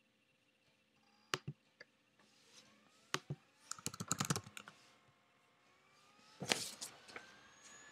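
Computer keys clicking: a few single clicks, then a quick run of keystrokes about four seconds in, followed by a louder brief noisy burst about six and a half seconds in.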